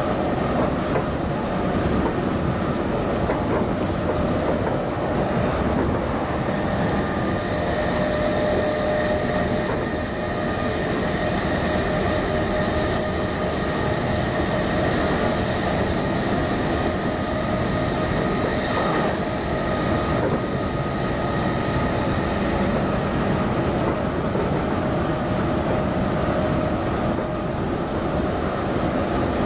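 Interior running noise of a Greater Anglia Class 317 electric multiple unit heard from inside the passenger saloon: a steady rumble of wheels on track with a steady hum of several tones on top.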